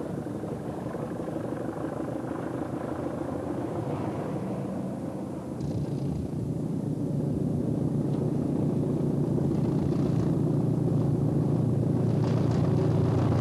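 Southern Region diesel-electric multiple unit approaching, its diesel engine's low rumble growing steadily louder through the second half. Before that, a steadier mix of train and road-traffic noise.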